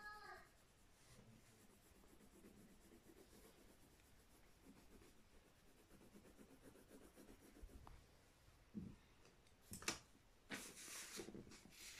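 Faint scratching of a pencil drawing on paper, with a few louder scratchy strokes near the end.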